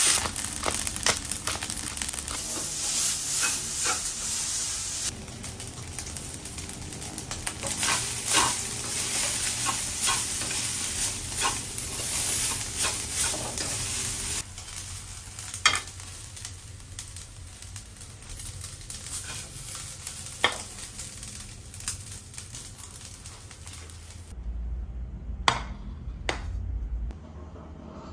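Fried rice stir-frying in a metal wok: a steady sizzle with the spatula scraping and clicking against the pan. Near the end the sizzle stops, leaving a low hum and a couple of clicks.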